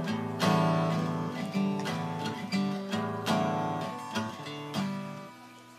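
Background music of a strummed acoustic guitar, fading out near the end.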